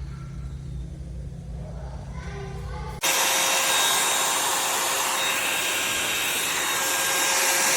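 A low hum, then about three seconds in a Revlon One-Step Volumizer hot-air brush dryer starts abruptly and runs with a loud, steady rush of fan air and a faint steady whine.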